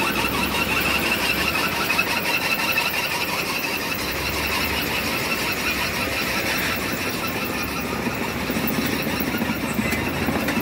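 Heavy machinery and diesel engines at a concrete batching plant running steadily, with a continuous high squeal over the low engine rumble, strongest in the first few seconds.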